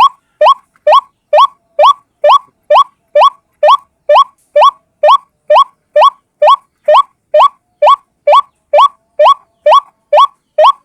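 White-breasted waterhen (ruak-ruak) calling over and over in a lure recording: short, loud notes about two a second, each one sweeping sharply upward in pitch, in an even, unbroken rhythm.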